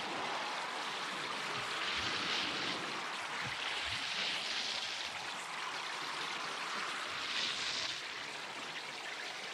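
Radio-play sound effect of someone wading on foot through shallow seawater: slow splashes every two to three seconds over a steady wash of water.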